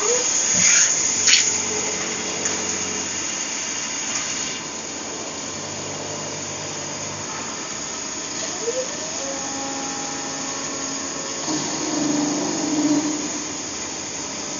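CNC lathe running and cutting metal, with a burst of high hiss in the first second or so and a short rising whine about eight seconds in.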